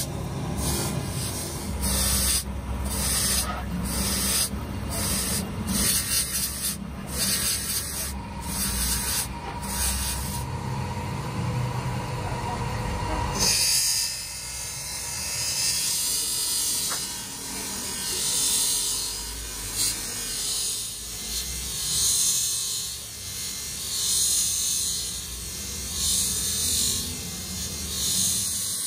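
Electric motor spinning an abrasive polishing wheel while metal is pressed against it, a steady rubbing grind. First a small part is held to the wheel. After a change about halfway through, a steel hydraulic jack tube is worked along the wheel, and the grinding swells and fades about every two seconds.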